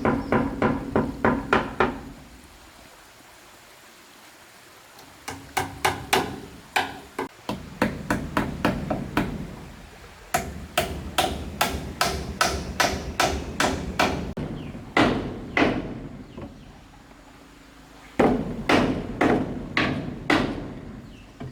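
Hammer blows on wood in quick runs of about four strikes a second, with short pauses between the runs.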